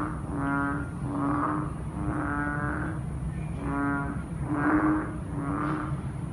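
A chorus of frogs croaking after rain: short croaks repeat a little over once a second, clearer ringing croaks alternating with raspier ones, over a steady low rumble.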